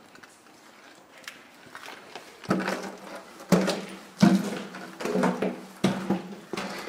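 Footsteps going down a flight of stairs. From about two and a half seconds in there are about six heavy steps, under a second apart, each a knock with a short ringing tone after it.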